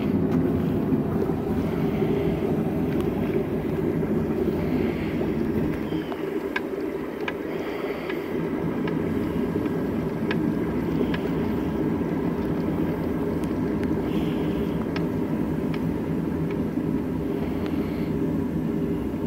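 Hot steel knife blade quenching in a tube of preheated oil: the oil bubbling and crackling, with sharp pops scattered through, over a steady low rumble.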